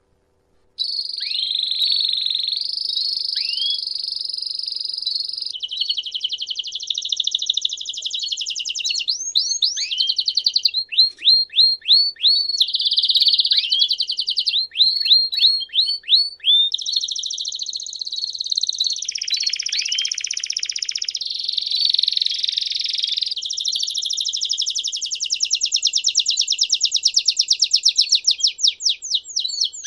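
Domestic canary singing a long, continuous song of rapid trills, one phrase running straight into the next, starting just under a second in. Around the middle the trills give way to a series of quick down-slurred notes, a few per second, before the fast rolling trills resume.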